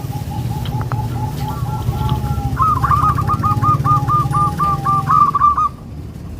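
Zebra doves cooing: a lower series of short repeated notes, joined about two and a half seconds in by a louder, higher run of quick staccato coos, with a low rumble beneath. Everything stops shortly before the end.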